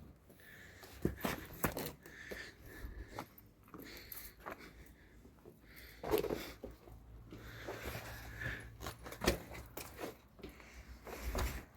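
Faint scattered scuffs and rustles with a few sharper clicks, over a low steady hum.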